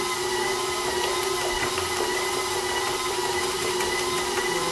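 Steady hum of a running electric motor or fan, holding one pitch throughout, with a few faint clicks.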